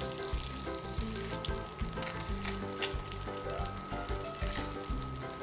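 Pieces of flathead mullet sizzling in hot oil in a stainless steel frying pan, being seared golden before braising.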